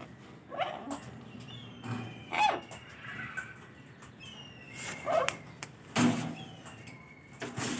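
Blue-fronted Amazon parrot calling: a series of about five short squawks, with a few thin falling whistles between them.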